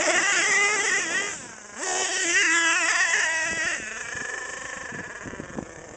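HPI Savage XL nitro monster truck's K5.9 big-block engine revving, its pitch rising and falling, with a short lull about a second and a half in; over the last two seconds it runs quieter and steadier.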